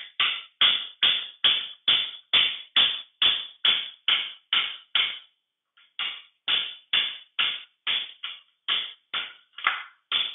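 Steady hammer blows on a punch set in a rusty 1953 Allis-Chalmers B final drive housing, about two strikes a second. There is a brief pause about halfway through before the blows resume.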